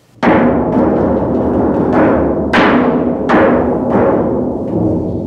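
Metal thunder sheet struck about five times, each hit ringing out in a long rolling rumble that overlaps the next, the studio way of making thunder.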